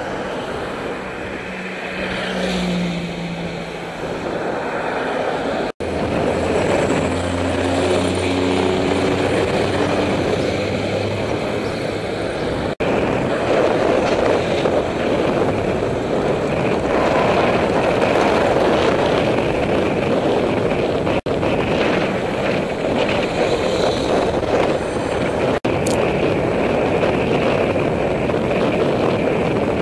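Wind rushing over a bicycle-mounted camera's microphone while riding, with the engines of passing cars heard in the first few clips. The sound drops out abruptly four times where separate clips are joined.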